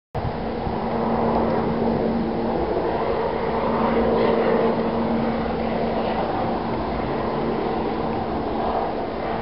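Class 50 diesel-electric locomotive's English Electric V16 engine running under power as it hauls a train past, a steady drone with two held tones, loudest about four seconds in.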